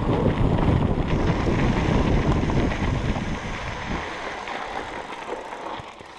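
Kona Process 134 full-suspension mountain bike rolling down a rocky trail: tyres rumbling and the bike rattling over rock, with wind buffeting the microphone. The noise fades from about four seconds in as the bike slows, and drops away sharply at the very end as it comes to a stop.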